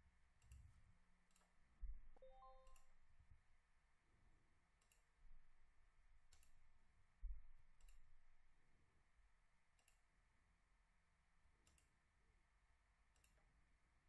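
Faint computer mouse clicks, scattered one every second or so, with two soft low thumps, about 2 and 7 seconds in, over near-silent room tone.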